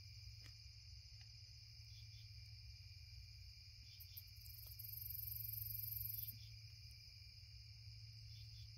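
Night insect chorus of crickets: a steady high trilling, with a louder, higher buzz joining from about four and a half to six seconds in.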